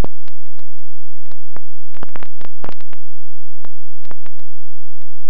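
Irregular crackling clicks and pops in uneven clusters, thickest around two to three seconds in and thinning out towards the end, over a faint steady hum.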